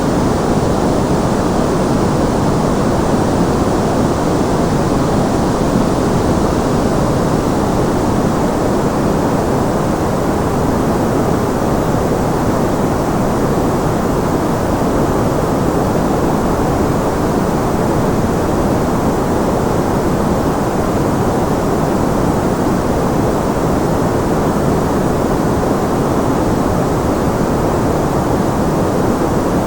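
Continuous electronic white noise used for tinnitus masking: an even, unchanging rush with no breaks or events, fuller in the lows and mids and softer in the highs.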